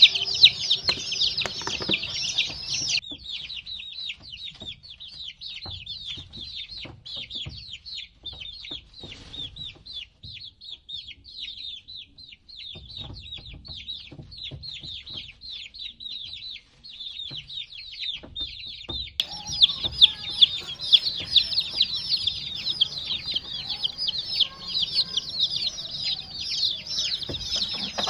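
A group of baby chicks peeping: many short, high, downward-sliding chirps overlapping continuously, louder near the start and again from about two-thirds of the way through. Scattered low thumps sound underneath.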